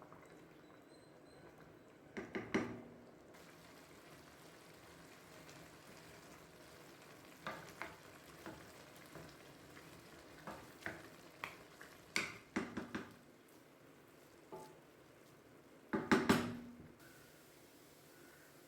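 A spoon stirring and scraping food in a cooking pot, with clusters of sharp clinks and knocks against the pot, the loudest about two and a half seconds in and again near the end. Under it is a faint steady sizzle.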